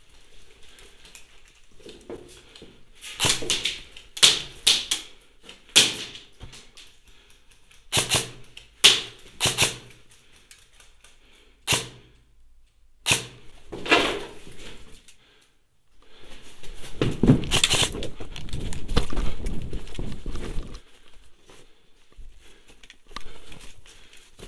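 A string of sharp single clacks, irregularly spaced, with several quick ones close together: single shots from an electric airsoft rifle. These are followed by about five seconds of loud, rumbling handling and movement noise on the camera.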